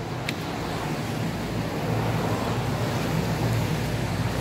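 Steady rumble of road traffic, growing louder over the first couple of seconds.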